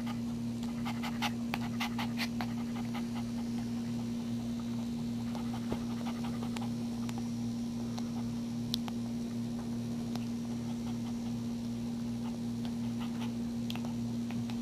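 Maltese mother dog panting after whelping, with small clicks clustered about one to two seconds in and a few more later, over a steady low hum.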